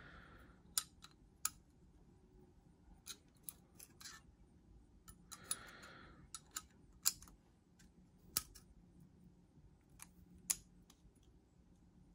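Cheburkov Small Strizh folding knife worked open and closed by hand, about a dozen sharp metallic clicks of the blade, detent and liner lock at irregular intervals, with a soft rustle of handling about halfway. The pivot is running on replacement bearings that are being tried in place of the stock ones.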